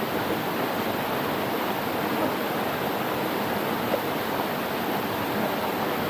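Steady rush of running water from a rainforest stream or cascade, an even unbroken hiss.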